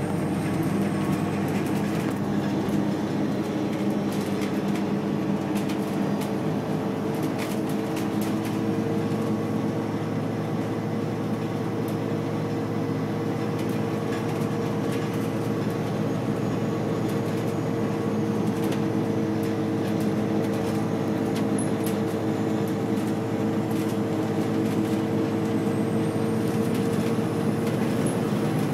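Volvo B7RLE bus's rear-mounted diesel engine running steadily, heard from inside the passenger cabin, with scattered light rattles and clicks from the bus body.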